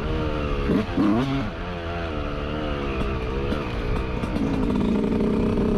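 Yamaha YZ125 125cc two-stroke single-cylinder dirt bike engine revving under riding, the revs dipping and rising quickly about a second in, then holding steadier, higher revs from about four seconds in.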